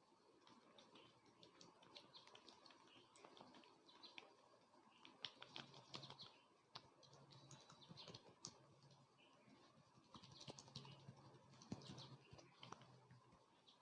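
Faint, irregular small clicks and light rustles of a barber's hands and tools working close on a client's head and hair. A faint low hum comes and goes from about halfway through.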